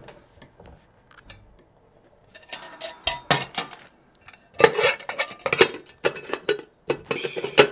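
Stainless steel canteen cup lid clattering and scraping against a metal canteen cup as it is pressed on, in bursts of clinks and rattles that start about two seconds in and get louder near the end. The lid does not fit the cup properly.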